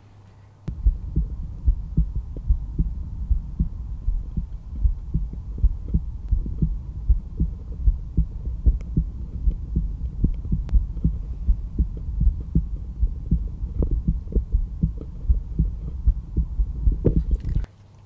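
A resting adult heart heard through a stethoscope pressed over the aortic area, the second rib space right of the breastbone: a steady, regular lub-dub beat over a low rumble. The beats are the sounds of the heart valves closing.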